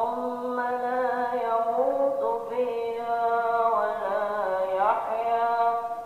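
A man's voice chanting Quran recitation in Arabic, holding long melodic notes and sliding between pitches, with brief pauses for breath.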